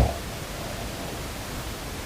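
Steady, even hiss in a pause between snores, with the tail of a low snore dying away at the very start.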